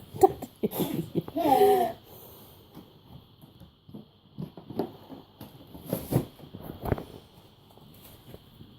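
A young child's short wordless vocal sounds, then light taps and rustles of things being handled, with two sharper knocks later on. A faint steady high whine runs underneath.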